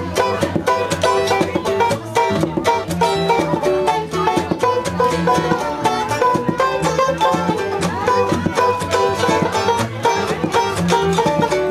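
Bluegrass band playing live: mandolin and five-string banjo picking quick notes over an upright bass.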